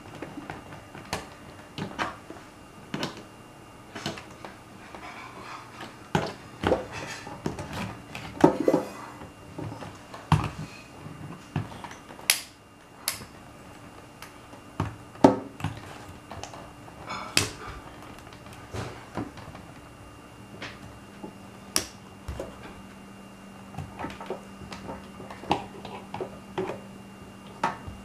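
Irregular clicks and light knocks, about one every second or two, with a stretch of rustling in the middle; a low steady hum starts about two-thirds of the way through.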